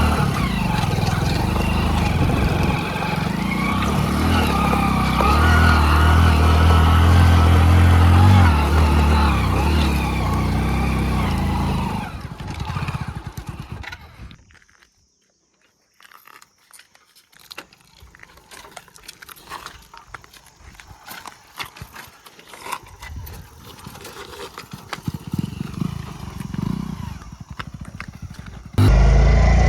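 Hero Splendor motorcycle's single-cylinder four-stroke engine running under way, then fading out after about twelve seconds. After a brief near-silent gap come scattered quiet clicks and knocks, and the engine cuts back in loud near the end.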